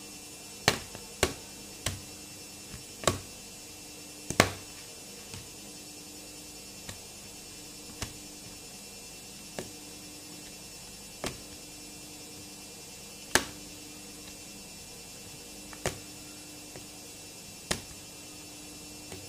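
Fluffy homemade slime made of glue, Dixan detergent and shaving foam being pressed and kneaded by fingers in a plate, giving about a dozen sharp clicks and pops at irregular intervals. The clicks come more closely together in the first few seconds, over a faint steady hum.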